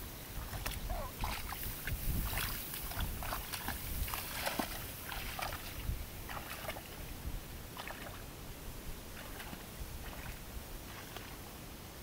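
Tall grass swishing and rustling in irregular bursts as someone pushes through it on foot, busiest in the first half. Wind rumbles on the microphone underneath.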